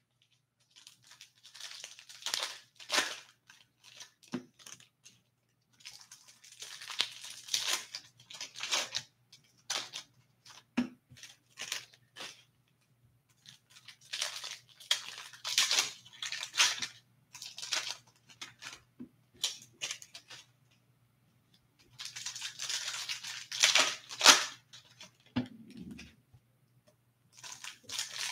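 Foil trading-card pack wrappers being torn open and crinkled by hand, in several bouts a few seconds apart, with a few soft knocks in between.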